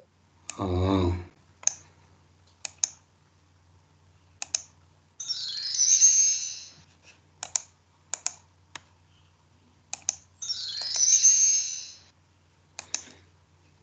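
Computer mouse clicking many times as slides are advanced. Twice a high-pitched electronic slide-transition sound effect of about two seconds plays through the computer.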